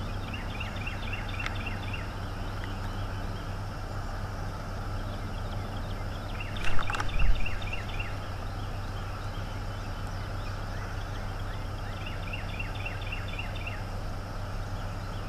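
Bald eagles chittering: three bouts of rapid high chirps, near the start, about halfway and near the end. About seven seconds in comes a brief loud rustle and thump as an eagle stirs on the nest, and a steady low hum runs underneath.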